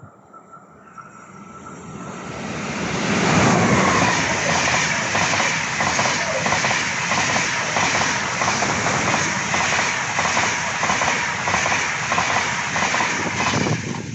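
A train approaching and passing at speed. Its rush of wheels on rails grows over the first few seconds, then holds steady with a regular clatter of about two beats a second.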